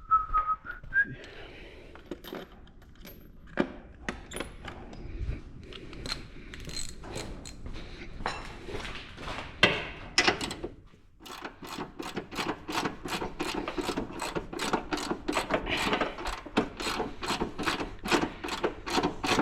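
A short whistled note at the start, then scattered knocks and clicks. For the last eight seconds a steady run of sharp mechanical clicks follows, about three a second.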